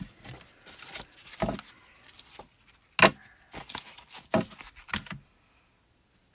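Clear stamp sheets and their plastic packaging being handled and flipped: a series of sharp plastic clicks and rattles with rustling between them, the loudest about three seconds in.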